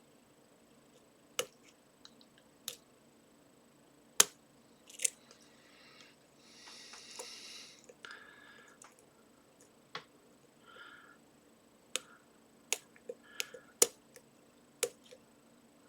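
Lock pick working the pins of a Trioving 55## lock with trampoline spool drivers: irregular sharp clicks and taps, with a short stretch of scraping just before the middle and a few softer rasps later on.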